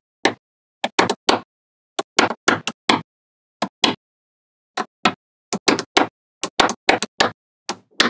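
Small magnetic balls snapping together one at a time: an irregular series of about twenty sharp clicks with silence between them.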